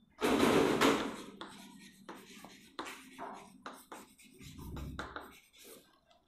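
Chalk writing on a chalkboard: a loud first stroke, then a run of short, quick scratches and taps as a word is written out.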